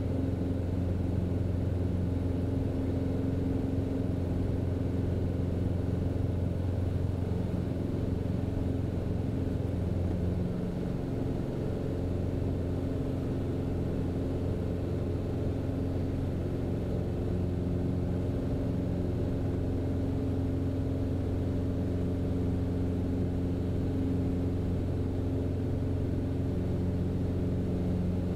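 Cessna Cardinal's four-cylinder Lycoming engine and propeller droning steadily through the climb-out just after takeoff, easing down slightly about ten seconds in.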